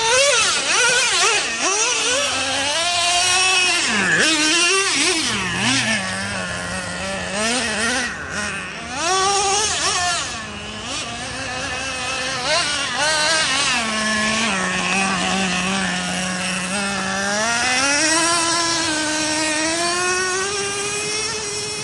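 Traxxas Revo 3.3 nitro RC monster truck's small two-stroke glow engine, revving up and down as the throttle is worked. Twice it settles to a steady low note, about six seconds in and again around the middle of the stretch.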